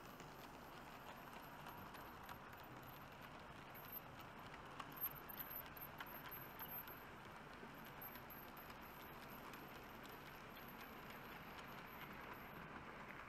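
00 gauge model goods wagons rolling past on the track: a faint steady rattle of small wheels on the rails, with a few light clicks over rail joints about halfway through.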